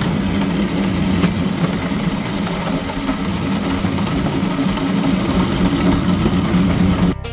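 Small motorized railcart (speeder) running along old rails: a steady engine drone with rapid mechanical clatter. Acoustic guitar music comes in right at the end.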